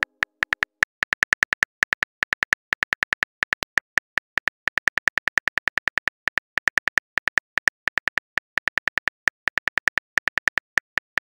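Simulated phone keyboard key clicks from a texting-story app, a quick run of short, pitched ticks, several a second with brief pauses, as a message is typed out letter by letter.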